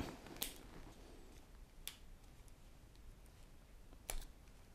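Plastic handling clicks from a Ztylus Z-Prime conversion lens and its flip-up lens cap being pressed and turned in the fingers. There are a couple of short clicks at the start, another about two seconds in, and a quick double click near the end.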